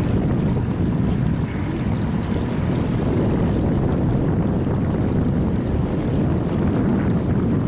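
Steady rumbling wind buffeting on the microphone, mostly low in pitch.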